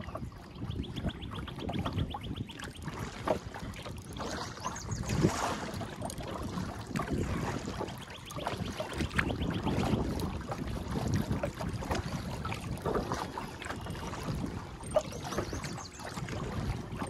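Wind buffeting the microphone and water lapping as a kayak is paddled along a canal, the sound swelling and easing unevenly. A short, fast, high trill comes twice, near the start and about eight seconds in.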